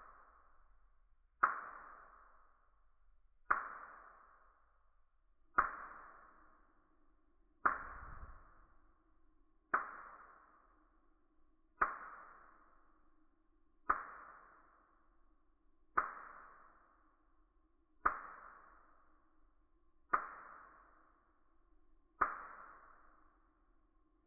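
Gas hob spark igniter clicking, slowed down, so each click rings out over about a second and they come about one every two seconds. A steady low hum joins about a quarter of the way in.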